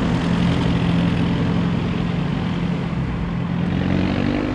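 Porsche 911 (996) Carrera 4's flat-six engine running through an exhaust with its catalytic converters removed. It holds a steady note, then begins to climb in pitch near the end as the revs rise.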